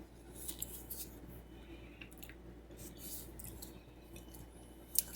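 Faint kitchen handling noises: a few light clicks and taps, with one sharper tap near the end.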